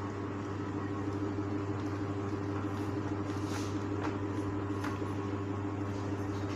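A steady low hum, with a few faint swishes about three and a half to five seconds in as a whiteboard is wiped clean with a duster.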